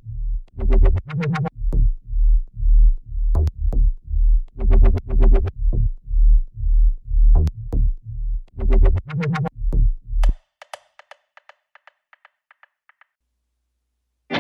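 Electronic intro music with heavy bass drum beats, about two a second, that stops about ten seconds in. A run of quick, fading ticks follows, then a couple of seconds of silence.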